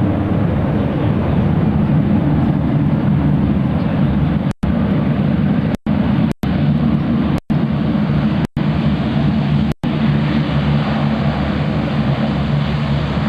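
C-130 Hercules' four Allison T56 turboprop engines and propellers running on the runway: a loud, steady propeller drone. The recording cuts out for an instant six times in the middle.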